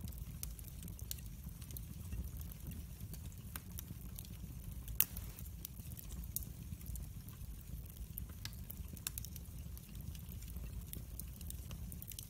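Wood fire of split logs burning in a fireplace, crackling with frequent irregular snaps and one louder pop about five seconds in, over a low steady rumble.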